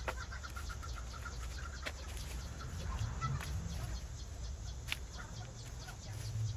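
Leafy weeds and vines rustling as they are pulled up by hand, with a few sharp snaps. A bird, likely a chicken, clucks in runs of quick short calls.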